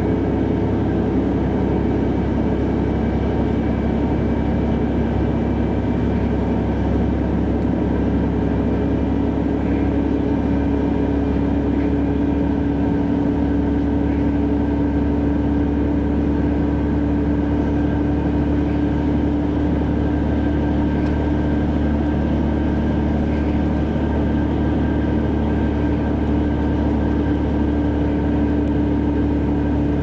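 Mercedes-Benz O-500 bus's diesel engine running steadily, a constant low rumble with a steady hum that holds the same pitch throughout.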